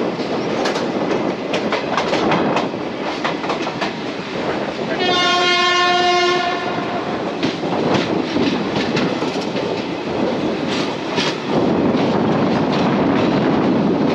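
Passenger train running, heard from an open coach door: steady rumble with wheels clicking over rail joints and points. About five seconds in, the locomotive's horn sounds one steady blast lasting about a second and a half.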